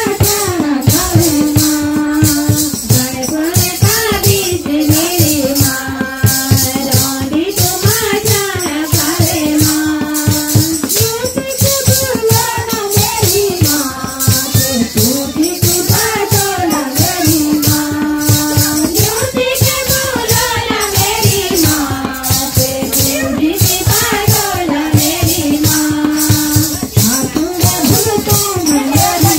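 Devotional kirtan singing: a melody sung in a phrase that repeats about every four seconds, over a fast, steady percussion beat with a bright shaking jingle.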